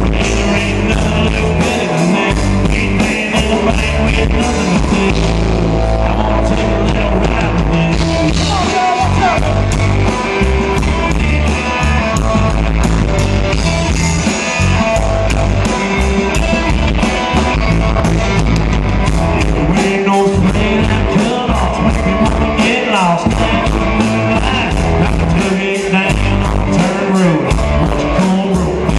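Live country band playing: drums keeping a steady beat under electric guitars and a pedal steel guitar, with a man singing lead.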